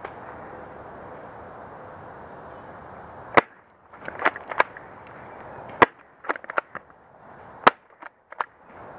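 Rustling through undergrowth, then airsoft pump-action shotguns firing: three sharp shots about two seconds apart, starting about a third of the way in, with smaller clicks and snaps between them.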